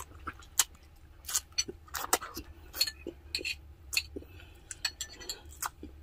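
Close-miked mouth sounds of eating braised pork spareribs by hand: irregular sharp wet smacks and clicks while chewing and sucking meat off the bone.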